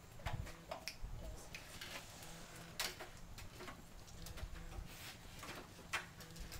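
Power wheelchair rolling off a van's metal wheelchair lift platform onto concrete: scattered light clicks and knocks over a faint low hum, with a sharper knock about three seconds in and another near the end.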